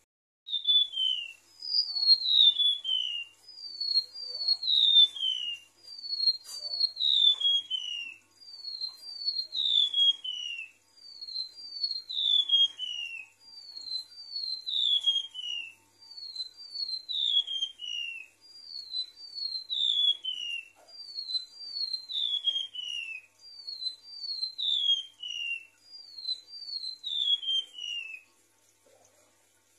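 Golden-bellied gerygone (remetuk laut) song: high, thin whistled notes that each slide down in pitch, in short phrases of two or three notes repeated every two to three seconds. It is a recorded call used as a lure and as a tutor song for songbirds.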